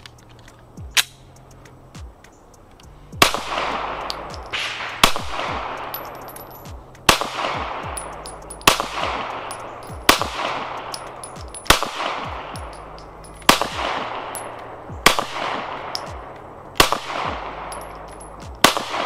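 Glock 19 9mm pistol fired in slow, deliberate single shots, about ten in all, roughly one every two seconds. Each crack is followed by a ringing echo. A single sharp click comes about a second in, before the first shot.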